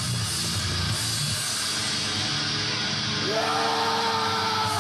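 Heavy rock music with a driving, distorted guitar; a long held vocal note comes in about three seconds in.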